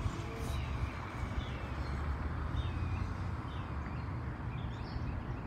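Birds chirping, a short falling call about once a second, over a steady low rumble.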